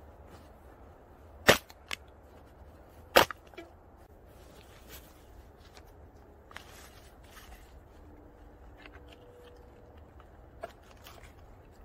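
Two empty aluminium beer cans stomped flat under a boot: two sharp cracks about a second and a half apart, each with a smaller crunch after it. Then soft rustling and handling of a nylon stuff sack.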